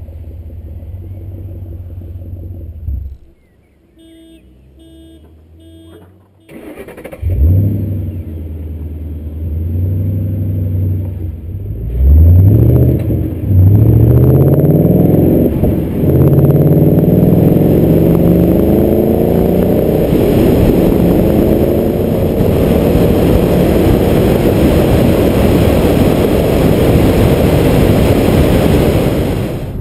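Ford Mustang GT's 5.0-litre V8 through a Roush aftermarket exhaust, idling at first, then after a short lull revving and accelerating hard through several quick upshifts, the engine pitch climbing and dropping with each shift. It then pulls steadily in a higher gear, the pitch slowly rising.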